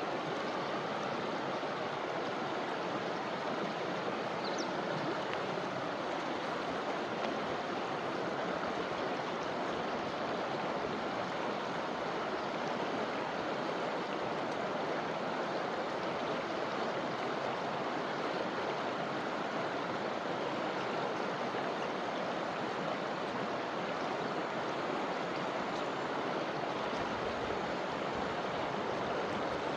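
River flowing: a steady, even rush of water.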